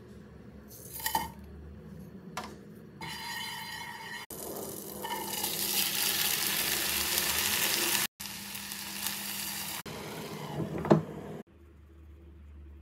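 Cooking in a saucepan on a gas hob: butter with cumin, bay leaves and cardamom sizzling, then dry rice poured in with a long hiss. The sound breaks off and changes abruptly several times, with a few sharp clinks, the loudest a little before the end.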